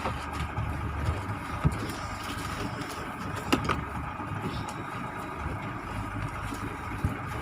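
An engine running steadily at low speed, with a steady hum and a faint whine, and two short knocks, about a second and a half and three and a half seconds in.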